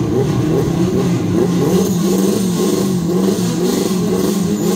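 Car engine running steadily at raised revs, its pitch wavering slightly.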